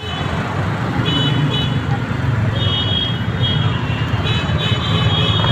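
Steady street traffic noise from passing vehicles, with short high-pitched tones that come and go every second or so above it.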